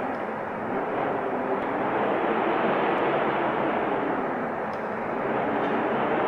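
Wind blowing steadily, a continuous rushing noise that swells and eases slightly every few seconds.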